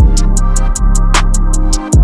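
Electronic background music: a drum-machine beat with quick hi-hat ticks, deep bass kicks and a sustained bass line that drops out briefly near the end.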